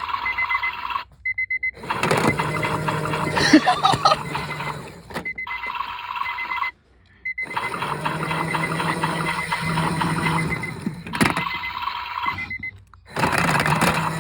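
Battery-powered toy washing machine running with a steady motor hum, while an electronic timer on it beeps rapidly and repeatedly like an alarm clock. The sound cuts out briefly three times and then resumes.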